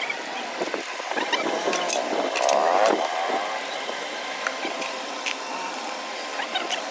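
Whole spices, black peppercorns, cardamom pods and the like, picked by hand and dropped into a steel dish, giving scattered small clicks and rattles over steady background noise.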